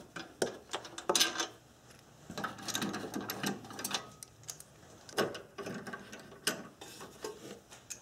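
Hand ratchet clicking in short, quick runs as the bolts holding a metal battery tray are loosened, with scattered knocks of metal on metal.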